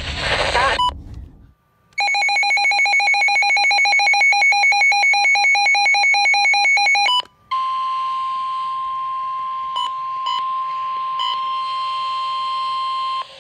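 Emergency-alert tones. A rapid electronic beeping, many beeps a second, runs for about five seconds. After a brief break comes a steady single-pitch tone of about 1 kHz, the NOAA Weather Radio warning alarm tone that comes before a National Weather Service warning.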